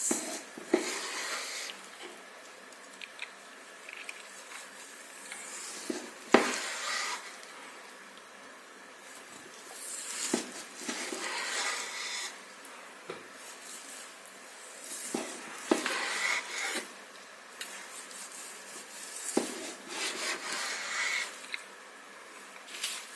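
Knife slicing smoked pork shoulder on a wooden cutting board: rasping strokes of the blade, with the blade knocking sharply on the board several times.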